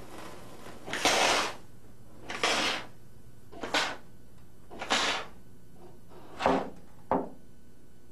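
Red handheld fire extinguisher discharged through its hose in six short hissing blasts onto a small fire in a tray. The first blast, about a second in, is the longest and loudest, at about half a second; the last ones are shorter.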